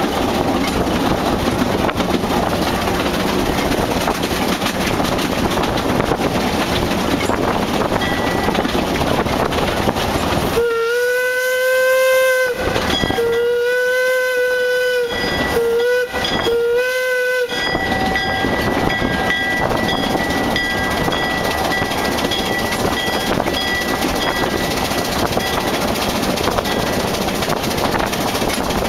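Narrow-gauge steam train running with a steady rumble and clatter of wheels on the rails. About ten seconds in, the steam whistle of Vulcan locomotive #10 blows four blasts, long, long, short, long, the grade-crossing signal.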